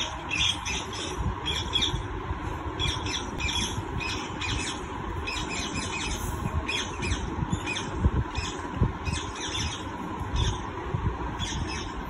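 Parrots squawking: short calls repeated in quick runs, with brief pauses between the runs, over a steady low rumble.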